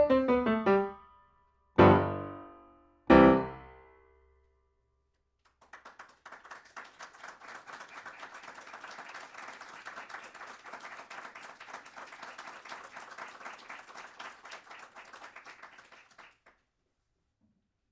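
Steinway grand piano finishing a piece: a fast descending run ends, then two loud final chords a little over a second apart, each left to ring and die away. A couple of seconds later an audience applauds for about ten seconds.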